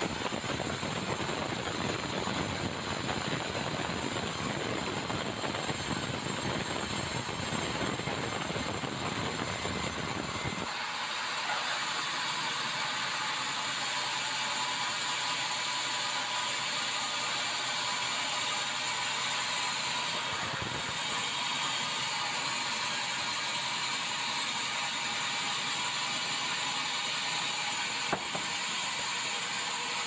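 Sawmill band saw running, its blade cutting lengthwise through a bengkirai hardwood log with a steady, even hiss and machine noise. About a third of the way in, the low rumble drops out suddenly while the high hiss carries on.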